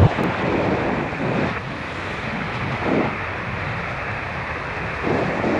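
Steady hiss of an ICOM IC-705 HF transceiver's receiver listening on the 20 m band between CQ calls, mixed with wind on the microphone during a parachute descent. Faint swells rise in the noise about a second and a half, three and five seconds in.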